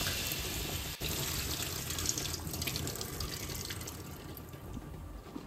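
Water running from a kitchen tap over grapes being rinsed in a washing tray in the sink. The flow dies away toward the end.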